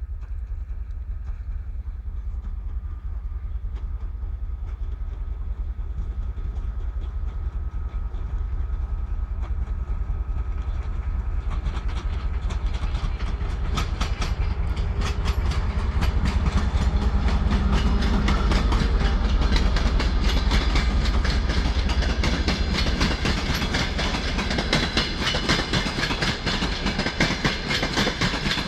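TEP70 passenger diesel locomotive, with its V16 diesel engine, pulling a train away under power, its rumble growing louder as it approaches and passes. From about halfway, wheels click over the rail joints, and the coaches keep clattering past near the end.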